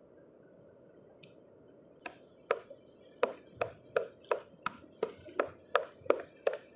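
A hand-held stone knocking against a shore rock to break open rock oysters (sisi) growing on it. Sharp stone-on-stone knocks come about three a second, starting about two seconds in.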